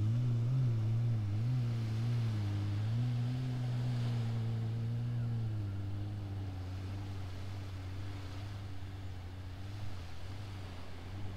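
Jet ski engine running as it speeds across the bay and away: a steady drone whose pitch wavers at first, then drops slightly and settles about halfway through while slowly fading.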